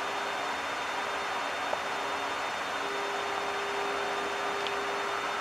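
Steady ambient noise on a parked Boeing 767-300ER's flight deck: an even hiss of air-conditioning and equipment-cooling airflow with a steady electrical hum under it, which briefly fades about a second and a half in and returns near three seconds.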